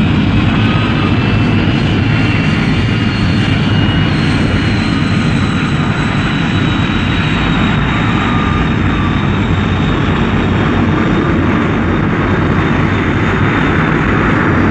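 Thunderbird 2's jet engine sound effect: a loud, steady jet roar with a thin high whine over it as the craft taxis.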